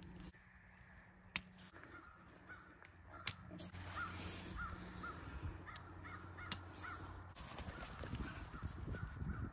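Tent being pitched: a few sharp clicks from the pole and plastic clips as the tent body is fastened on, with some rustling of nylon fabric. Behind it a bird calls over and over in short notes, about two a second, from about three and a half seconds in.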